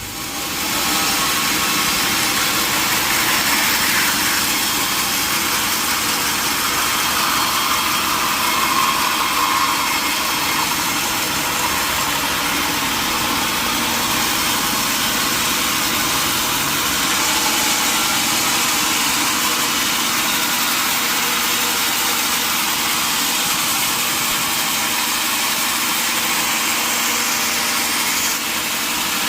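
Sawmill machinery running with a steady, loud mechanical noise, dipping briefly near the end.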